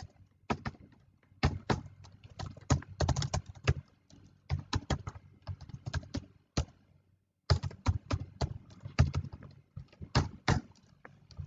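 Typing on a computer keyboard: irregular runs of keystrokes, with a short pause a little past the middle.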